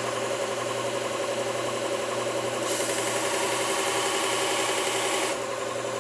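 Motor of a belt sharpening machine running steadily, with the belt hissing. From a little over two and a half seconds in until just past five seconds, a chisel's bevel is ground on the belt, adding a louder, brighter grinding hiss that then drops away.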